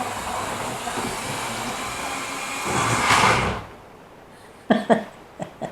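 OO gauge Class 31 model locomotive running along the track, its electric motor and old driving wheels making a steady whirring rumble that swells about three seconds in and then drops away suddenly. A few brief sharp sounds follow near the end.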